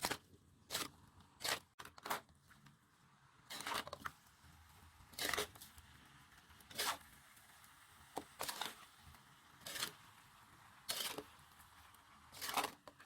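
About a dozen short, rasping strokes at irregular spacing, roughly one a second, from food being cut by hand during preparation.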